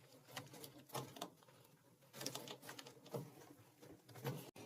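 Faint, scattered clicks and taps of hands handling the washer's hoses and plastic drain-pump parts.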